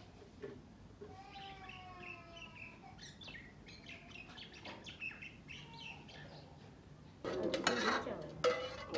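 Small birds chirping in the background over a quiet yard. About seven seconds in, a sudden louder stretch of clatter and splashing: steel pots being handled and washed with water.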